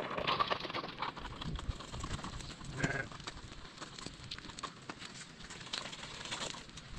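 Sheep or goats bleating, once just after the start and again about three seconds in, over the clicking and scraping of a small plastic toy wheelbarrow rolling across stony dirt.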